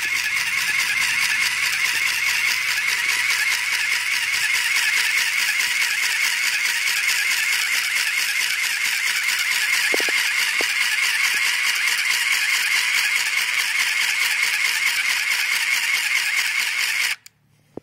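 Small handheld sewing machine running continuously, its needle stitching a zipper into thick canvas with a fast, even rattle. It cuts off suddenly near the end.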